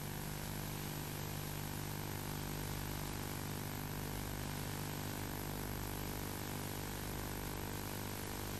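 Steady low hum made of several even tones, with a constant hiss over it and no change or events.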